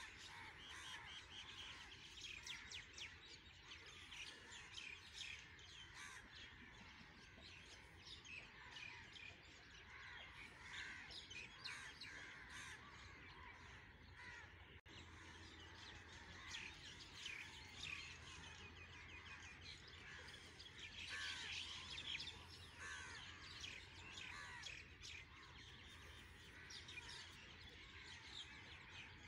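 Faint chorus of many birds chirping and calling, with short overlapping chirps throughout, over a low steady hum.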